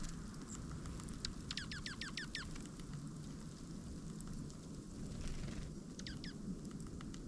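A small songbird calling: a quick run of about seven sharp, falling chirps, then three more about four seconds later, over a steady low background rumble.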